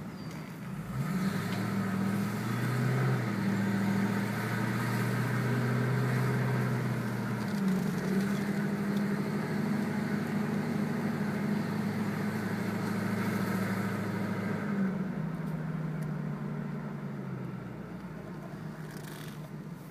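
Turbocharged Ford Mustang GT V8 running while the car is driven at a steady pace, its engine note changing pitch a couple of times. It drops and quietens over the last few seconds.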